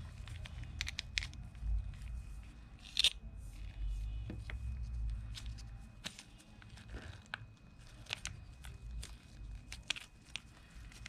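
Scattered sharp clicks and light scraping of tools and small metal parts as a fishing reel seized by rust and salt corrosion is taken apart.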